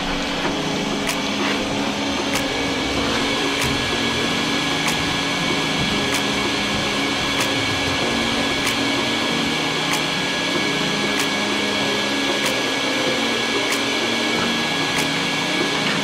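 Shop vacuum running steadily, a continuous motor whine and rush of air, with a light tick about every second and a quarter.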